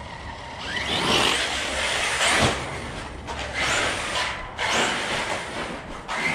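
Arrma Notorious RC stunt truck's Spektrum 1250kv brushless motor whining up in repeated bursts of throttle on 8S, with tyres churning dirt, as the truck is driven into a flip. A sharp knock comes about two and a half seconds in.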